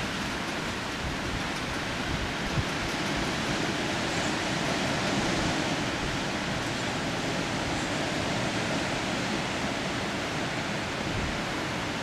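Steady wind, an even rushing hiss, with uneven low buffeting of the wind on the microphone.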